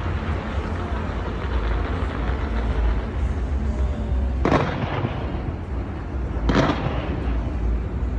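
Fireworks display going off, a steady low rumble of distant bursts with two sharper bangs about halfway through and a couple of seconds later.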